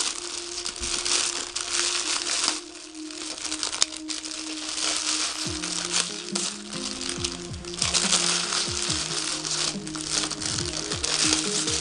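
Plastic packaging crinkling and rustling in waves as it is handled and pulled at, with music playing underneath.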